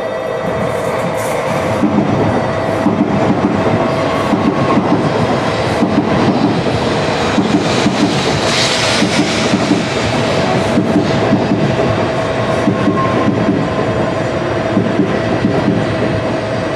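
N700A Shinkansen train running into the station platform, with the steady running noise of wheels on rail and a steady tone beneath it. A brighter hiss comes about eight or nine seconds in.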